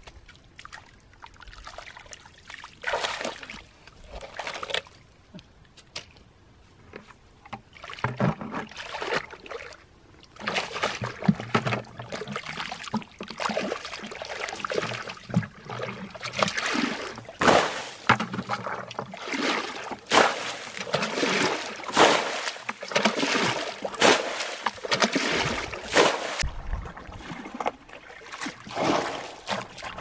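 A plastic bucket scooping and dumping muddy pond water by hand: repeated splashing and sloshing, the pond being bailed dry. It starts sparse, then from about ten seconds in comes a steady run of splashes roughly once a second.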